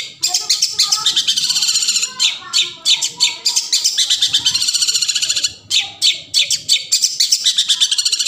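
Long-tailed shrikes (cendet) singing, a fast run of chattering trills and harsh calls that goes on almost without a break, with a short lull a little after halfway.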